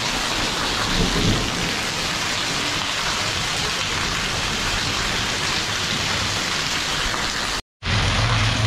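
Heavy rain pouring down steadily. The sound cuts out for a split second near the end, then carries on.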